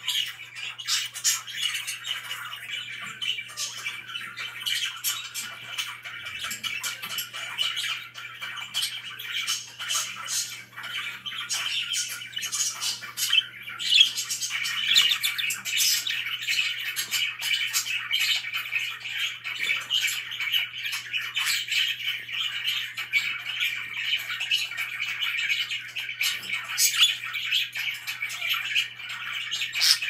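Budgerigars chirping and chattering without a break, a busy stream of short squawks and warbles with quick clicks.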